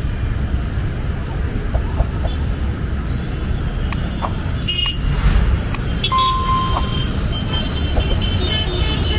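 Steady low rumble of road traffic, with a short steady tone about six seconds in.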